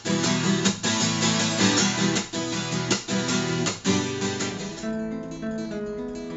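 Steel-string acoustic guitar strummed in chords. About five seconds in it gives way to a nylon-string classical guitar playing quieter single plucked notes.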